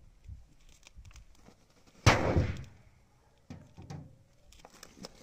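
Forged cleaver striking a loose sheet-metal car bonnet: one loud bang with a short ringing decay about two seconds in, followed by a few lighter knocks of the blade against the panel.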